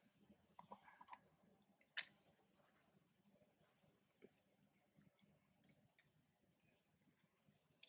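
Near silence with faint scattered high ticks and clicks, one sharper click about two seconds in.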